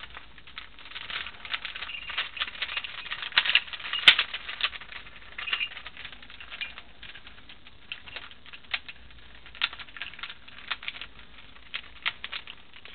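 Layers of a modded 3x5x7 Rubik's-type cuboid puzzle turned by hand, giving an irregular run of plastic clicks and clacks. The turning is busier in the first half and sparser later.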